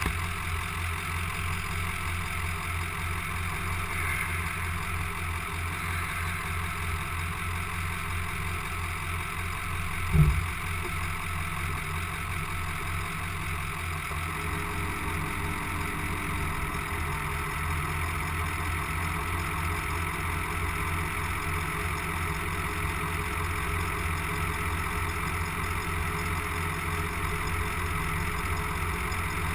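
Straight-piped 2004 Ford F-250's 6.0L Power Stroke V8 turbodiesel idling with a steady low pulse. A single loud thump comes about ten seconds in.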